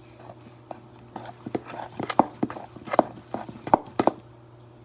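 Slime being stirred with activator in a container: a run of short, irregular clicks and taps, starting about a second in and stopping shortly before the end.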